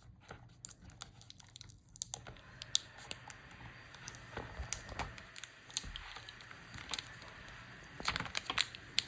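Scattered small plastic clicks and crinkling from hands handling a laptop display panel while working at the video cable connector on its back, with a quick run of clicks near the end.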